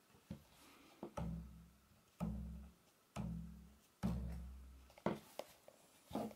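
Stretched silicone tableware band around a cup, plucked with a finger: four low twangs about a second apart, each fading within about half a second. Lighter snaps of the band come before and after them.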